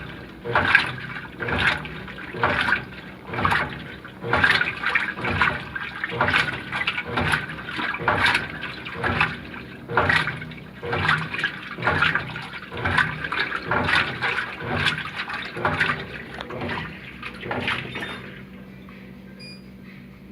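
Brastemp Ative 11 kg top-loading washing machine agitating, water and clothes sloshing in the tub with a surge roughly once a second. The agitation stops about two seconds before the end, leaving a faint steady low hum.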